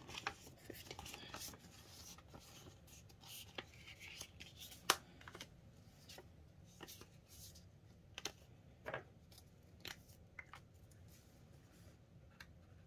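Crinkling and rustling of plastic polymer banknotes and plastic binder envelopes being handled and sorted, with scattered sharp clicks, the loudest about five seconds in.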